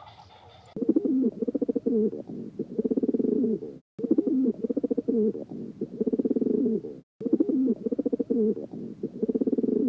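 Bird cooing, low and repeated over and over, in three runs of about three seconds each separated by brief silent breaks.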